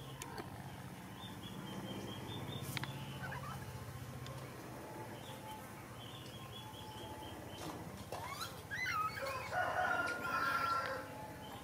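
Domestic chickens in the background: rows of short, high, repeated chirps, then about three seconds from the end a louder stretch of sliding and held calls, like a rooster crowing.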